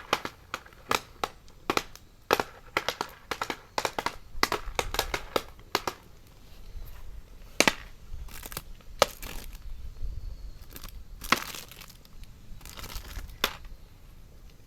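Oak firewood burning in a campfire, crackling with irregular sharp pops, several close together at times, over a low rumble of the fire.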